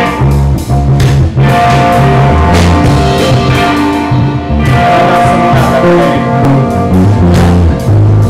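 Live rock band playing loudly: electric guitars holding sustained notes over a moving bass line and a drum kit.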